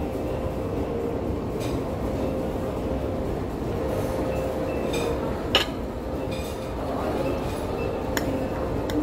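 Knife and fork clinking and scraping on a plate as grilled meat is cut, a few sharp clinks with the loudest about five and a half seconds in, over a steady low rumble of room noise.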